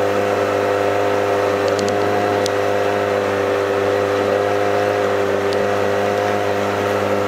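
Motorboat engine running steadily at an even pitch as the boat travels upriver.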